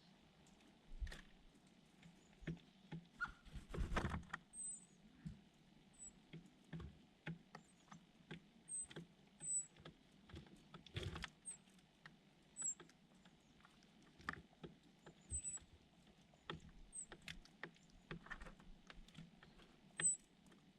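Small birds pecking and scrabbling close up: irregular light taps and rustles, a couple of louder scuffles, and frequent faint, thin high chirps.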